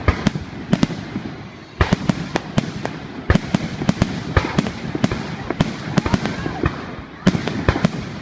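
Aerial fireworks shells bursting close by in quick succession: sharp bangs several times a second, some with a crackle or echo after them. The bangs grow denser and louder about two seconds in, and again near the end.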